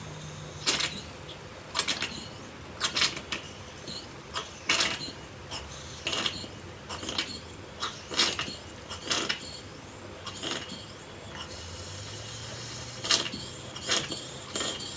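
Small live-steam table engine, a Stuart Models James Coombes, being turned over by hand under steam before it runs on its own: short, irregular puffs and spits of steam from the cylinder, roughly one a second, with a lull near the end.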